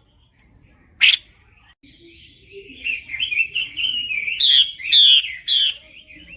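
Female Chinese hwamei calling: one sharp, loud note about a second in, then a quick run of chirping notes that builds and is loudest near the end.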